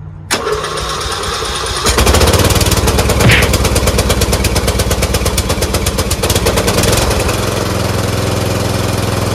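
Murray lawn tractor's Briggs & Stratton flathead engine cranked on the starter for about a second and a half, then catching and running fast. About 7 s in it settles to a steadier, lower run. This is its first start after sitting through a winter, on a freshly installed battery.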